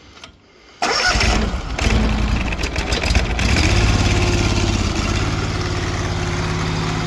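Self-propelled TMR mixer's carbureted engine starting about a second in, running unevenly for a couple of seconds, then settling into a steady idle.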